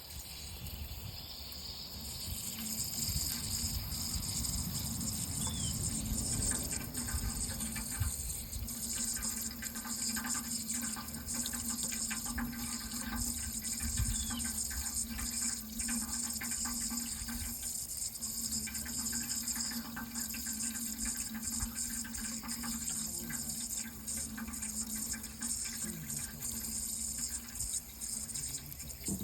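Water running in a steady stream, an even hiss with no break.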